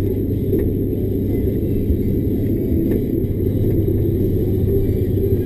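Diesel engine of a log-loaded timber lorry running steadily under way, heard from inside the cab as a steady low rumble.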